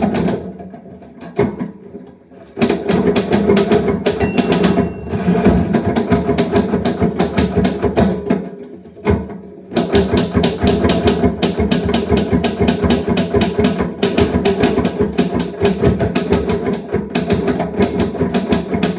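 Manual typewriter typed on quickly, a dense run of key strikes clacking with a short pause midway. About four seconds in, a single bell ding, the carriage's margin bell nearing the end of a line.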